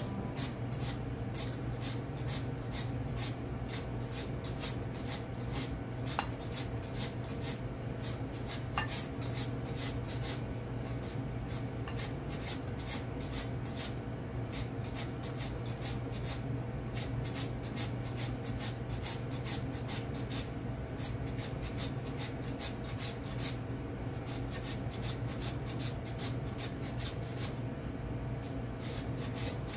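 Cucumber being julienned on a handheld wooden julienne slicer: quick, even rasping strokes, about two or three a second, over a steady low hum.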